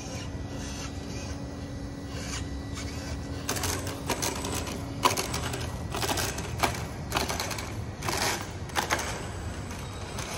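Electric RC truck on a G6-01 chassis running on concrete. A steady motor whine in the first half gives way to a run of about eight short, rasping tyre scrapes as the truck slides and turns.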